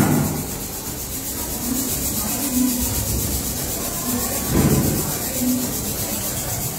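A brick wall collapsing in heavy rain: a loud crash of falling masonry right at the start, then steady rain hiss, with a second, shorter crash of debris about four and a half seconds in.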